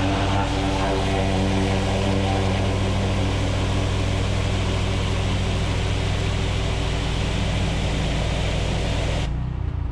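Pressure washer spraying a steady high-pressure jet of water, with a steady engine hum underneath. Near the end the spray stops for about half a second, then starts again.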